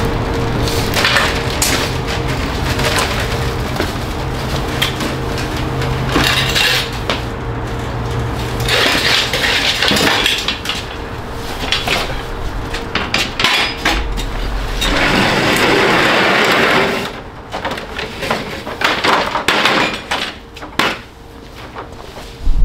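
Clattering knocks and bangs of a metal hand truck and stacked plastic soda delivery crates being moved and set down on a tile floor, with a few seconds of continuous rattling about two-thirds of the way through. A low steady hum sounds under the first third, then stops.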